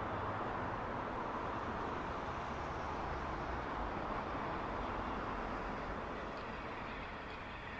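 Steam locomotives at a station platform: a steady rushing noise with no distinct exhaust beats, easing off slightly near the end.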